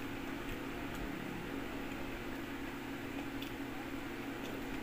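Steady low mechanical hum in a small room, with a few faint clicks as a man chews a mouthful of bread roll.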